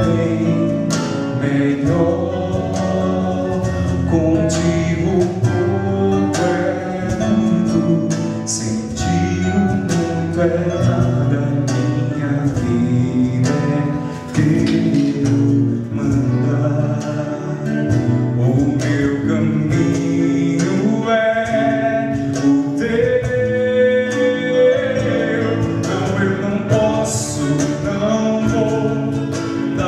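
A Christian worship song in Portuguese sung with guitar accompaniment.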